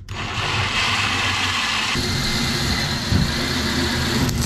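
Cordless drill with a gold twist bit running under load, drilling a hole through a boat's shelf; its tone shifts about two seconds in.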